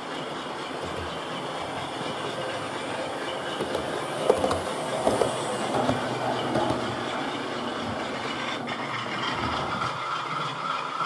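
Model Class 47 diesel locomotive running slowly on the layout: a steady electric motor hum with the wheels clicking over the rail joints.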